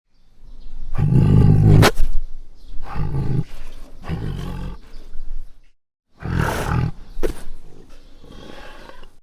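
Tiger roaring: a long roar that builds over the first two seconds, then several shorter roars. After a brief silent break, another roar trails off.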